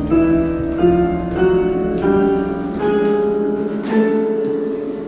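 Musical staircase sounding a note for each step climbed: separate piano-like tones about every half-second to second, rising slowly in pitch like a scale.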